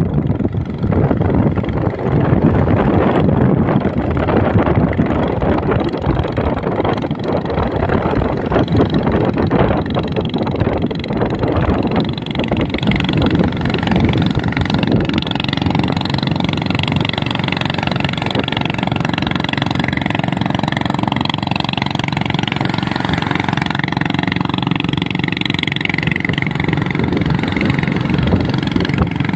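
Engine of a motorized watercraft running steadily under way. In the first half it is mixed with a rushing noise of wind and water; from about halfway it settles into a steady engine tone.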